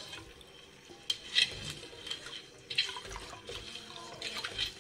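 Wooden spatula stirring sugar and water in a steel pot, the liquid swishing and the spatula brushing the pot in strokes about every second and a half, with the sugar not yet dissolved for the syrup.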